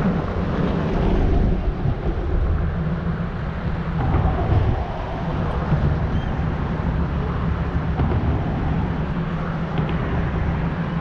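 Steady low rumble of motor-vehicle engines, even throughout with no sharp events.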